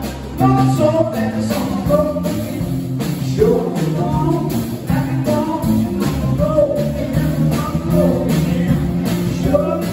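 Live rock band playing a song: electric and acoustic guitars, electric bass and a small drum kit, with a sung vocal over the top.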